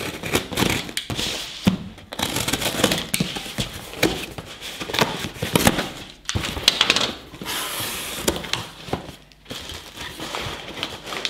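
Box cutter slicing through the packing tape on a cardboard box, then the cardboard flaps being pulled open and the paper packing and plastic-wrapped bag inside rustling and crinkling.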